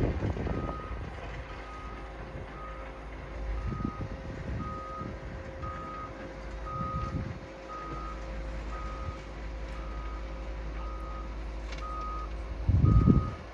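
Travel warning beeper of a Liebherr 922 road-rail excavator sounding while it drives along the track, a steady beep about twice a second over the low running of its diesel engine. A louder low rumble swells about a second before the end.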